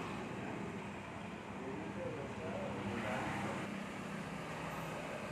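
A steady low engine hum, with faint voices heard about two to three seconds in.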